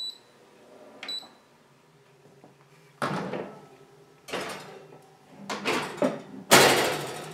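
Countertop convection toaster oven beeping once as it is set to preheat at 400 °F, then its fan humming low and steady. Several clunks and rattles of handling at the oven follow, the loudest near the end.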